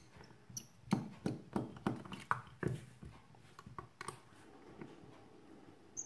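Small quick clicks and ticks of a precision screwdriver turning screws out of a mobile phone's plastic frame, about three a second, fading to fainter fiddling over the last couple of seconds.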